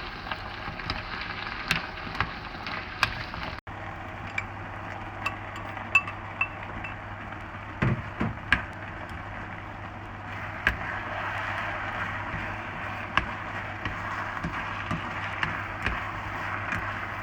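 Noodles being stir-fried in a wok: a steady sizzle, with the spatula clinking and scraping against the pan every so often.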